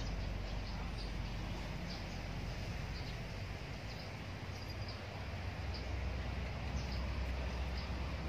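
Outdoor riverside ambience: a steady hiss over a low rumble, with short high chirps repeating irregularly throughout.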